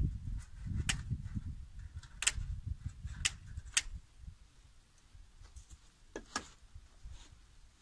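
Tin snips cutting the edge of chicken wire: sharp metal clicks, four in the first four seconds and a close double click at about six seconds, over a low rumble that fades after about four seconds.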